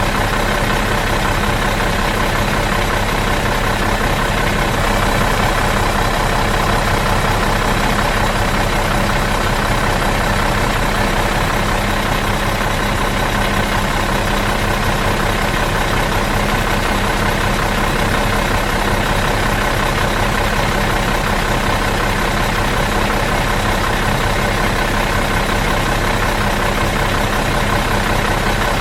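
Bus engine idling steadily out of gear, an even, unchanging hum with a few constant tones.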